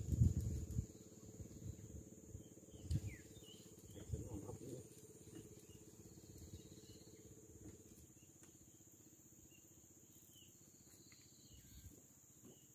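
Insects droning steadily at a high pitch, with faint scattered bird chirps and a few low bumps in the first five seconds.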